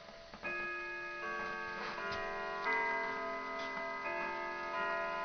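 A Hentschel grandfather clock's chime movement playing its quarter-hour chime. Struck chime notes sound one after another, about every 0.7 s, each ringing on and overlapping the next.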